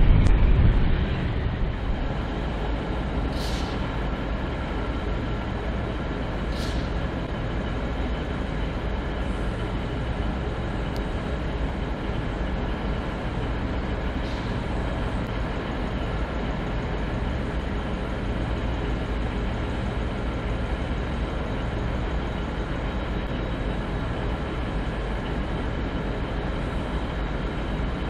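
Diesel railway locomotive engine running at a steady, even drone, with three short high hisses along the way.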